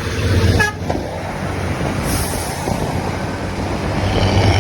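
Intercity bus horn sounding over the bus's running engine and road noise, loudest in a blast that cuts off under a second in and again near the end, with a brief hiss about two seconds in.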